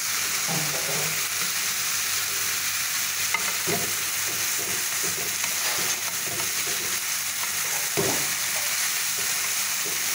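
Sliced bitter gourd and tomatoes sizzling steadily in a stainless steel pan while a wooden spatula stirs them, scraping and knocking against the pan several times.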